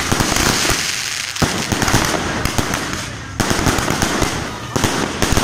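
Ground fountain fireworks spraying sparks: a loud steady hiss thick with rapid crackling pops, swelling suddenly about a second and a half in and again about three and a half seconds in.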